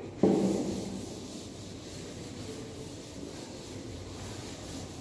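A chalkboard being wiped clean with a duster, rubbing back and forth in repeated strokes. It starts abruptly just after the beginning, then goes on as a steady scrubbing hiss.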